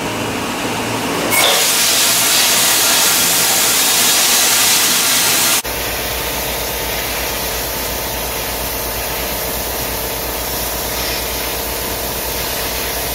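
Homemade vapour blaster (wet-blasting cabinet built from an old dishwasher) running. About a second in, a loud steady hiss starts as air and glass-bead slurry spray from the nozzle onto a carburetor body. About halfway through, the sound drops to a duller steady hiss over a low hum.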